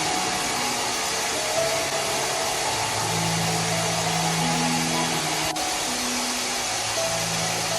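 Steady, loud whooshing machine noise, with background music notes held and changing over it and a brief break about five and a half seconds in.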